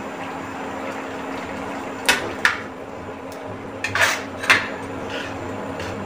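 Metal slotted spoon stirring bean curry in a non-stick kadai, clinking sharply against the pan several times from about two seconds in, over a steady background hiss.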